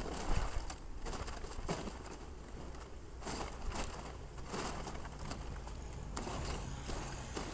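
Excavator demolishing an old brick building: irregular crashes and crunching of breaking wood and brick over a steady low hum.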